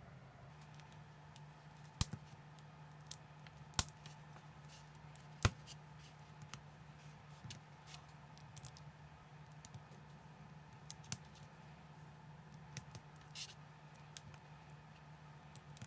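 Small plastic building bricks clicking as they are handled and snapped together. There are three sharp clicks in the first six seconds and lighter scattered ones later, over a faint steady low hum.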